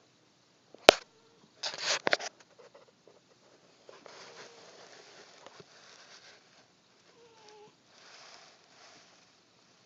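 A sharp click about a second in and a short rustle just after. Then a sleeping pet snores softly, with a breath about once a second.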